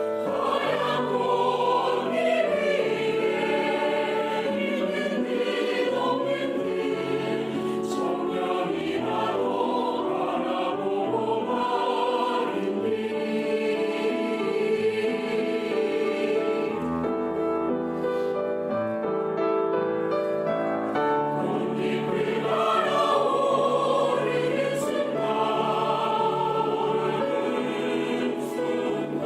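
Mixed choir of sopranos, altos, tenors and basses singing a sustained, lyrical choral song in harmony. The upper voices drop back for a few seconds in the middle, then the full choir returns.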